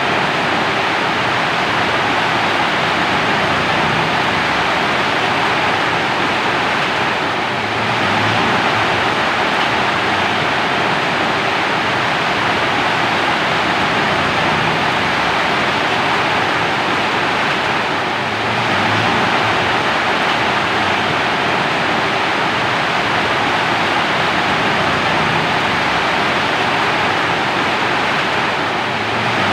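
Steady rainfall, an even hiss with no distinct drops or thunder, easing very slightly for a moment about every eleven seconds.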